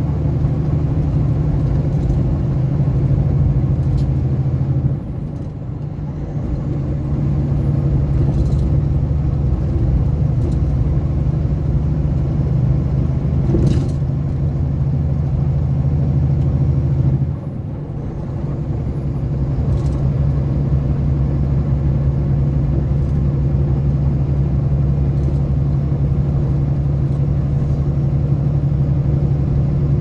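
Engine and road noise inside a vehicle cruising on a highway: a steady low drone. About five seconds in, and again after about seventeen seconds, the engine note drops briefly, then builds back up over a couple of seconds.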